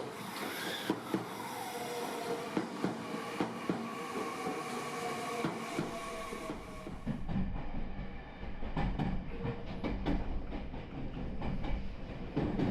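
JR Taketoyo Line diesel railcar running on the track, its wheels clicking over the rail joints. A tone falls in pitch over the first seven seconds or so, then a deeper rumble takes over.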